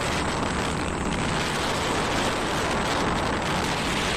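Steady rushing wind and travel noise from moving along a road, with no distinct engine note or separate events.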